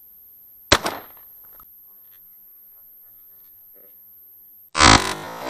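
A single sharp crack about a second in, dying away quickly, then a loud harsh buzzing burst near the end.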